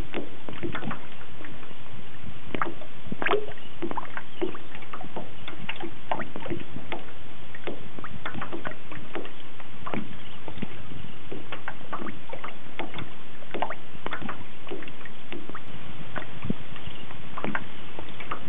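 Water slapping and sloshing against the hull of a small boat as it is paddled, with paddle splashes: a quick, irregular run of short splashes and slaps.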